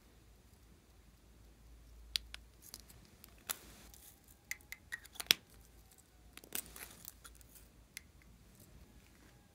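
Small plastic clicks and taps as cosmetic tubes, a makeup pencil and a lip balm, are uncapped and handled: a scattered run of sharp clicks, the loudest about five seconds in.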